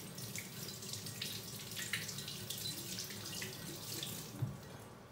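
Kitchen tap running into a stainless steel sink while hands are rinsed under the stream, with small splashes. There is a knock about four and a half seconds in, and then the water stops.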